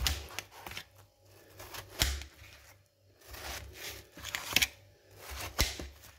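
A knife slicing and scoring ripe watermelon flesh in a run of crisp, wet cuts, with a few sharp knocks of the blade, about two seconds in and twice near the end.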